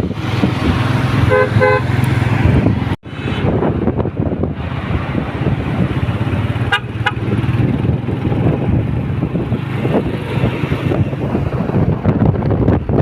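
Strong dust-storm wind buffeting the microphone with a steady rumble. A vehicle horn honks twice in quick succession about a second and a half in. The sound cuts out briefly about three seconds in.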